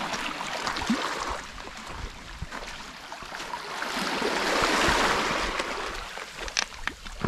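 Small sea waves washing over the rocks at the water's edge, one wash swelling to its loudest about four to five seconds in. A few light clicks near the end.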